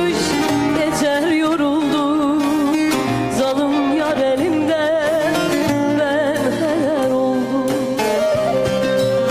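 Music: a Turkish song with an ornamented, wavering melody line over steady accompaniment.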